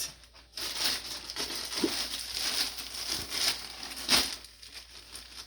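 Plastic bag crinkling and rustling as clothing is handled and unpacked, with one sharper crackle about four seconds in.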